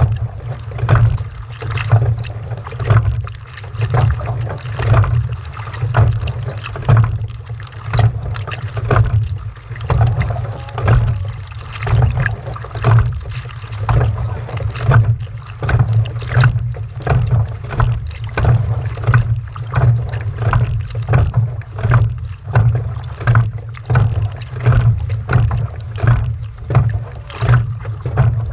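Rhythmic water strokes and splashing, about one a second, as a small boat is paddled or rowed, over a constant low rumble.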